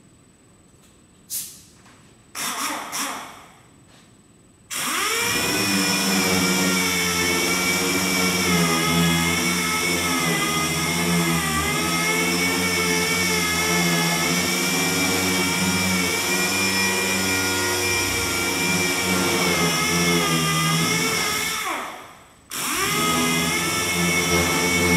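An electric power tool's motor starts about five seconds in and runs steadily with a constant whine. Near the end it winds down with a falling pitch and starts again half a second later. Before it starts there are two brief noises.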